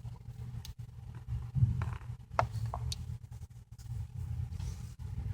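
Faint handling noise with a few small clicks and taps, spread through the middle, as a suction cup and guitar pick pry up an iPhone 6 screen, over a steady low hum.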